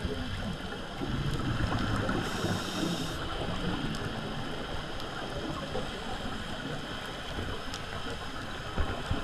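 Muffled underwater noise heard through an action camera's waterproof housing, with scuba divers' exhaled bubbles rumbling and, near the end, a few sharp crackles.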